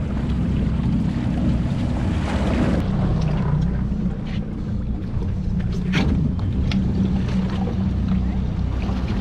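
Boat engine running steadily under way, with wind and water noise over it and a few sharp slaps or knocks, the loudest about six seconds in.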